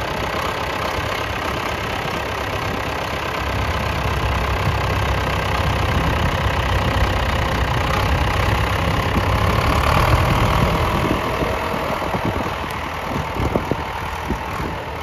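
John Deere 2420 tractor's diesel engine running at low revs with a steady clatter as the tractor drives slowly. The sound swells a little past the middle, eases toward the end, and a few short knocks come near the end.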